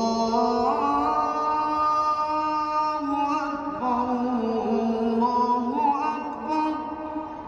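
A single voice chanting in long, ornamented held notes that slide slowly from pitch to pitch, in the manner of Islamic religious chant; it eases off near the end.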